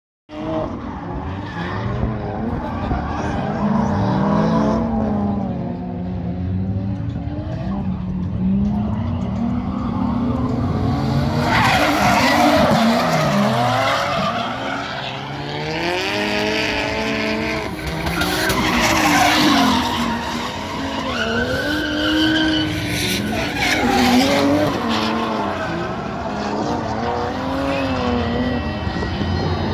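Drift cars' engines revving hard, pitch swinging up and down with throttle and gear changes, with tyres screeching as the cars slide sideways. The screeching is loudest in bursts about twelve, sixteen and nineteen seconds in.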